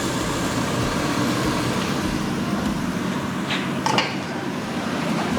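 Air fryer fan running with a steady whoosh, with two short clicks about three and a half and four seconds in.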